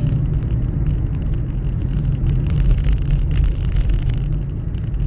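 A vehicle driving along a paved road: a steady low rumble of road noise.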